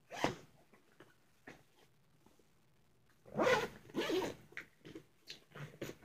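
Backpack pocket zipper pulled open in two short strokes about three seconds in, followed by a few light clicks and rustles.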